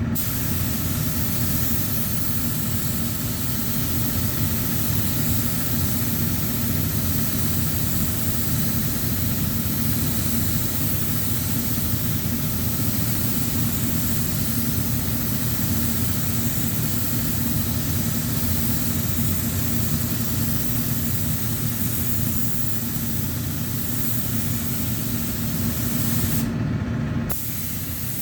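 Air spray gun hissing steadily as it sprays primer, over a steady machine hum; the hiss cuts out for about a second near the end.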